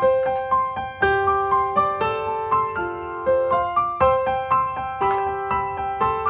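Background piano music: a gentle melody of evenly paced notes, about four a second, over a lower note that changes about once a second.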